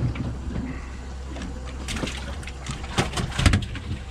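A cluster of sharp knocks and clicks between about two and three and a half seconds in, from a fish and gear being handled on the metal deck of a small boat, over a steady low hum.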